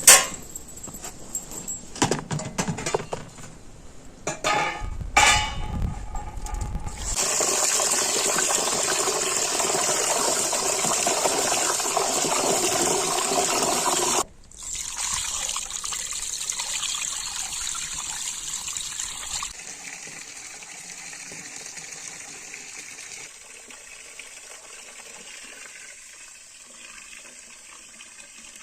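Water running steadily, as from a tap or poured into a vessel, after a few seconds of knocks and handling clicks. The flow breaks off abruptly about halfway through, resumes, then carries on much more softly.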